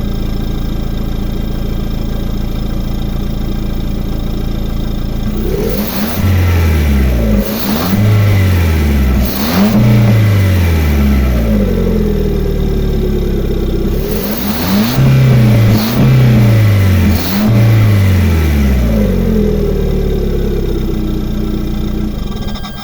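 A Lada Vesta's four-cylinder petrol engine idling steadily, then blipped to higher revs three times in quick succession, and again three times later. Each rev rises and falls back to idle, and a sharp knock sounds as several of the revs begin.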